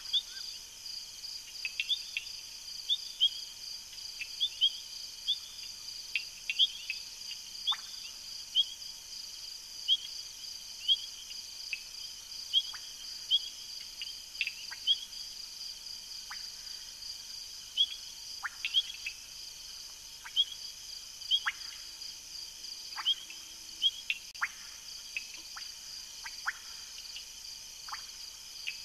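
Night chorus of insects and frogs: a steady high insect trill, with short chirps and quick falling calls scattered throughout.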